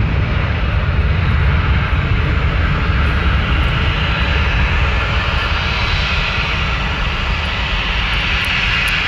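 A SunExpress Boeing 737's jet engines on the runway, a steady loud noise that fades slowly as the aircraft moves away.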